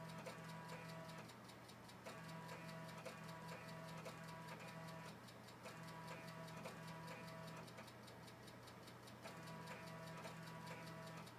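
Old computer running quietly: a fast, even run of faint ticks over a low hum that cuts in and out every second or two.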